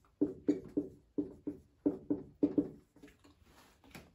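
Writing strokes: a quick run of about a dozen short scratches and taps in the first three seconds, then fainter ones.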